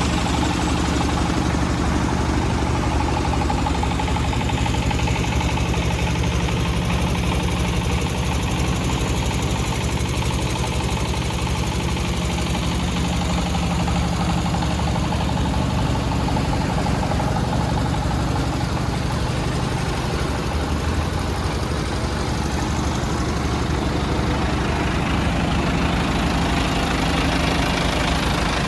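Isuzu 100P light truck's engine idling steadily, its low engine note holding even with no revs.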